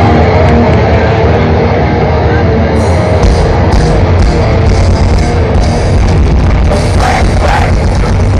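Grindcore band playing live over a large PA, heard from the crowd: loud, dense distorted guitars and drums. About three seconds in, a deeper low end comes in with regular cymbal hits.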